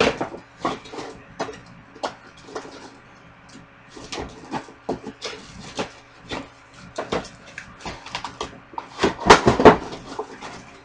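Cardboard packaging being handled: the flaps of a shipping carton pulled open and scraped, making a string of irregular knocks and rustles. The loudest burst comes near the end, as the toy's retail box is slid out of the carton.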